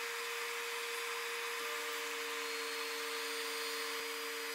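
Steady hiss of room noise with a faint continuous hum, joined by a second lower hum about a second and a half in. There are no distinct handling or tool sounds.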